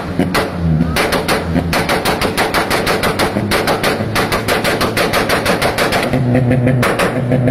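Car exhaust backfiring in rapid strings of loud pops and cracks, several a second, over a revving engine. About six seconds in the pops thin briefly while a steadier engine note holds, then they pick up again.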